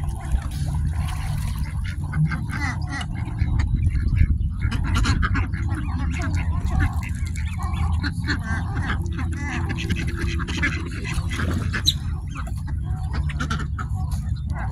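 A flock of ducks and coots calling on the water, many short overlapping calls and clicks, over a steady low rumble.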